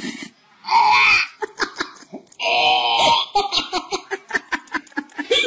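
High-pitched human laughter: two longer laughing cries, then a quick run of short laughs that breaks off near the end.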